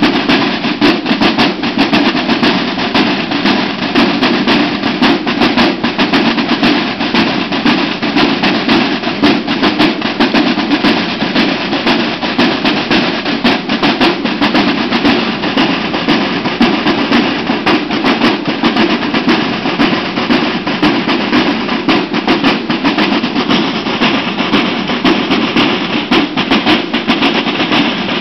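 A military drum line of many field drums played together, a dense, continuous drumming without pause.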